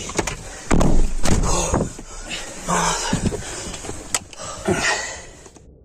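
Irregular bumps, clicks and rustling handling noise from people moving about in a hurry, with brief muffled voices.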